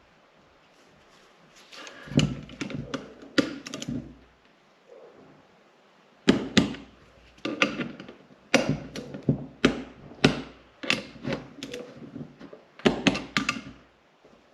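Irregular series of sharp knocks and clatters from tools and metal oil-pump parts being handled and set down on a workbench, in a short burst about two seconds in and a longer run from about six seconds to near the end.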